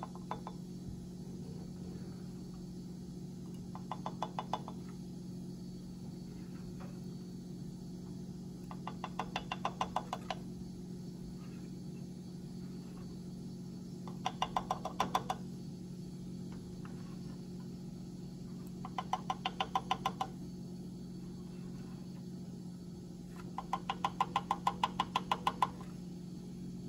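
A metal spoon tapping quickly against a stainless steel saucepan, in five bursts of several sharp taps each, a few seconds apart, over a steady low hum.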